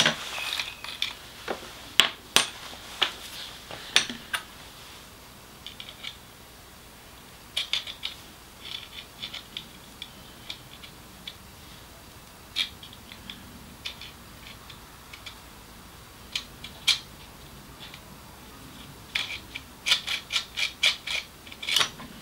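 Scattered sharp metallic clicks and rattles of a Parkside PET 25 electric nailer-stapler's magazine being worked by hand as a strip of fasteners is fed in, coming in small clusters with quiet gaps between.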